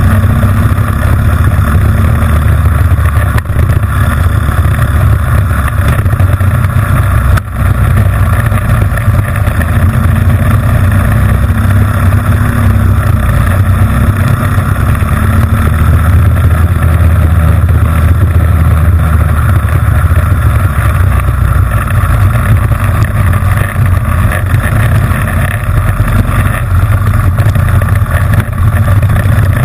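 A racing kart's Honda GX160 single-cylinder four-stroke engine running hard and loud, heard close from on board the kart, with a couple of brief dips in the first eight seconds.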